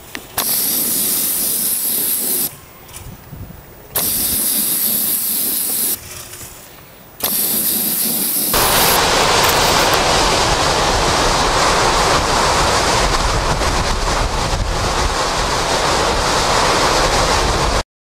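A spray gun hisses in three short bursts as it sprays roof coating onto clay tiles. After about eight seconds it gives way to a louder, steady rush of hurricane-force wind, which cuts off suddenly just before the end.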